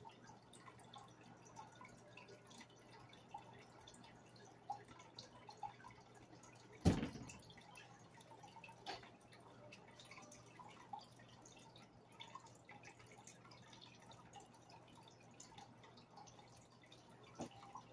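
Faint water dripping and ticking in a goldfish aquarium over a low steady hum, with one sharp knock about seven seconds in and fainter clicks later on.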